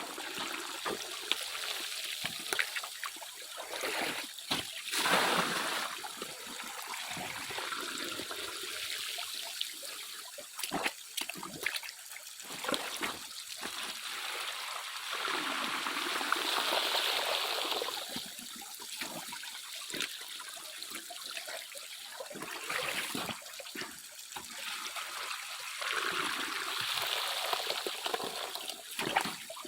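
Water splashing and trickling unevenly, with scattered sharp clicks of stones, as gravel is washed by hand in water to search for gold.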